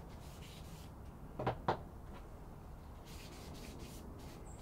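A cloth wiping the faces of sharpening stones in soft rubbing strokes, with two short clacks about one and a half seconds in.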